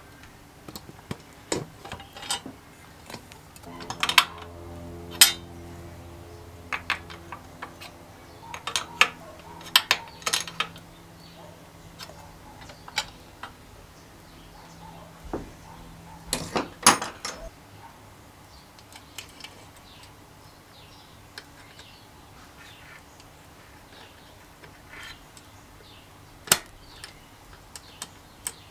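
Metal engine parts and hand tools clinking and tapping during hands-on assembly work: scattered sharp clicks and clinks, some in quick clusters, with a faint steady hum from about four seconds in until about seventeen seconds.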